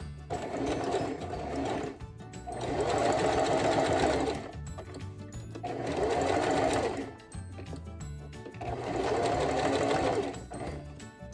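Electric sewing machine stitching a glitter appliqué onto black spandex fabric in four short runs of a second or two each, with brief pauses between.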